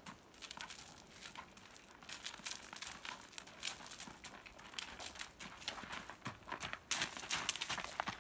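A horse's hooves crunching on gravel footing as it trots, an irregular run of crunches that gets louder near the end as the horse comes close.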